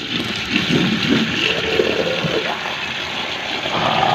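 Tap water running into a plastic colander of kemangi (lemon basil) leaves, splashing as a hand rubs and turns the leaves under the stream.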